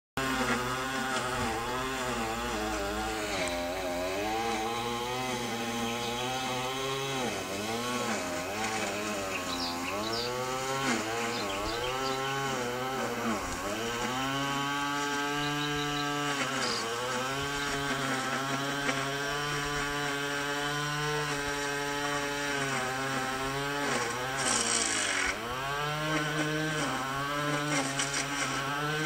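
A small engine running steadily, its pitch dipping and rising again every few seconds as if it is being loaded and revved.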